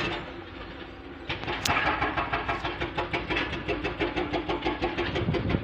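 Excavator-mounted hydraulic rock breaker hammering rapidly, about nine blows a second, starting about a second in, over the steady running of the excavator's diesel engine.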